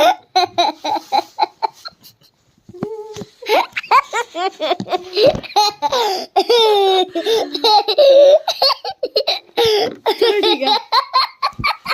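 Young child laughing in repeated bursts, mixed with some speech, with a short lull about two seconds in.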